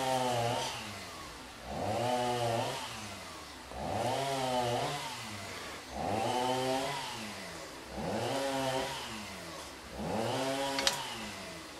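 Domestic cat meowing over and over, one long drawn-out meow about every two seconds, each rising and then falling in pitch. A short sharp click near the end.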